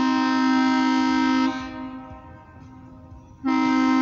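Freight locomotive's air horn blowing for the grade crossing: a long steady blast that cuts off about a second and a half in, then after a two-second gap another long blast begins near the end.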